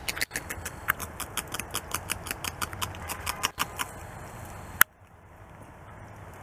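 North American beaver gnawing a strip of tree bark held in its forepaws: quick crunching bites, about six a second, that stop after nearly four seconds, then one sharp louder click about a second later.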